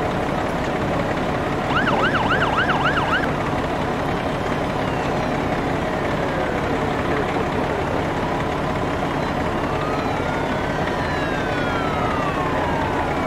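Fire engine sirens over steady vehicle noise: a short burst of fast warbling yelp, about four sweeps a second, about two seconds in, then siren tones gliding slowly down in pitch through the rest.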